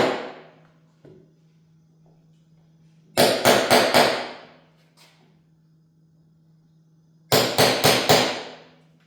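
Two bursts of about four quick hammer blows, roughly a quarter second apart, each burst ringing briefly afterwards, at about 3 and 7 seconds in. A faint steady low hum runs underneath.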